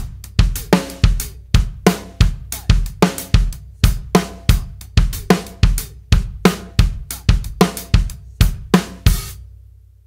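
Drum kit playing a basic 7/4 groove of hi-hat, bass drum and loud snare hits only, with no ghost notes. The playing stops about nine seconds in and the drums and cymbals ring out.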